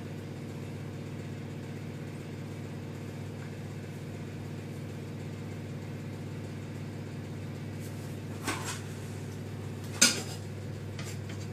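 A steady low hum runs throughout, and a utensil scrapes and knocks against a frying pan twice, faintly about eight and a half seconds in and louder about ten seconds in. The pancake being worked at has stuck to the unoiled non-stick pan.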